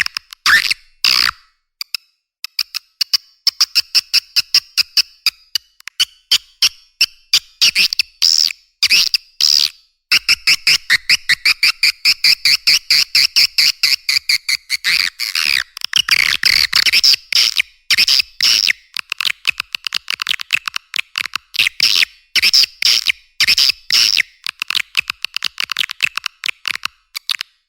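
Edible-nest swiftlet call recording, the kind played to draw swiftlets into a nesting house: rapid trains of sharp clicks and chirps, turning into an almost unbroken buzzy twittering from about ten seconds in.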